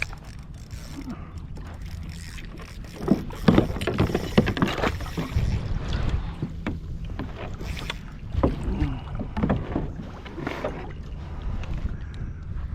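Scattered knocks and handling noise on a fishing kayak while a hooked redfish is played on a spinning rod, over a steady low wind rumble on the microphone.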